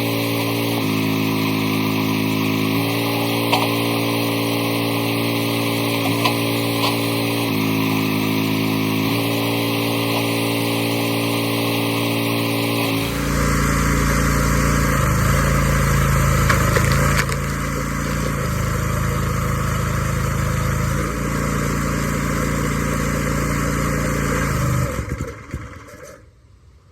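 Log splitter's small gas engine running steadily on a freshly cleaned carburettor. About halfway through its sound changes and runs rougher and a little louder, then near the end it dies out and stops: the stall it has been suffering from, which the owner thinks was something like a backfire shutting it down.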